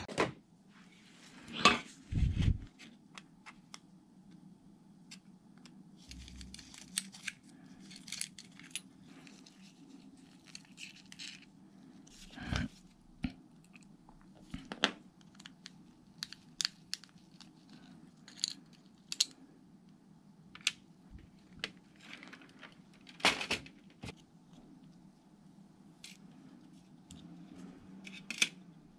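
Small metal parts of a Shimano Calcutta 100XT baitcasting reel being taken apart by hand: scattered light clicks, taps and scrapes of parts and small tools against a metal tray, with two louder knocks a couple of seconds in, over a steady low hum.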